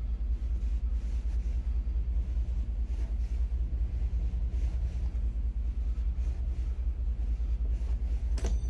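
Steady low rumble, with faint knocks of a wrench working a nut on a hydraulic lifter puller tool held in a vise. Near the end a sharp metallic clank as the wrench slips off and flies.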